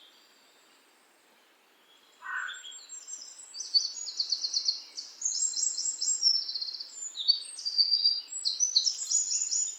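Several songbirds singing. After about two seconds of near quiet comes a short lower rising call, then high, rapid trilled phrases from more than one bird, overlapping one another.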